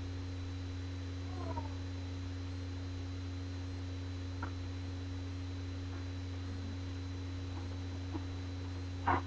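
Steady low electrical hum. About one and a half seconds in there is a faint short gliding sound, and just before the end a brief louder sound.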